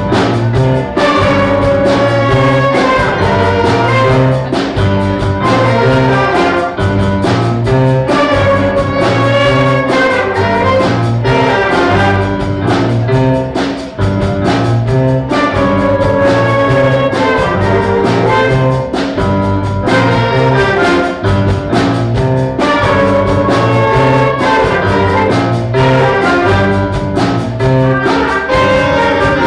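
A middle school concert band playing, brass to the fore: trumpets and trombones over a low part pulsing on a steady beat.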